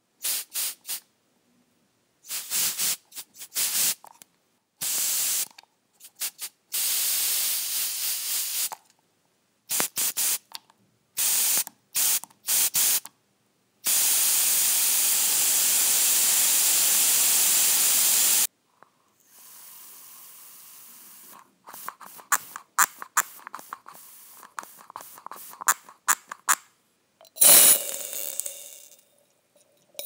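Aerosol room air freshener cans spraying. There are many short hissing bursts, then one long continuous spray of about four and a half seconds. After that comes a stretch of faint, sputtering, crackly spurts, and a final burst near the end.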